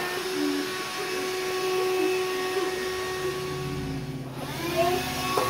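Bissell Lift-Off cordless vacuum's detachable hand vac running, a steady motor whine over rushing air. About three seconds in, a lower buzz joins the sound.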